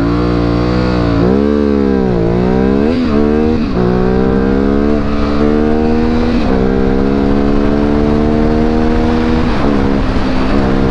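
Modified Yamaha Byson motorcycle engine accelerating hard in sport riding mode, heard from the rider's helmet. The engine note climbs and drops sharply with several quick upshifts in the first four seconds, then holds a steady, slowly rising pitch at cruising speed, with a few brief throttle dips near the end.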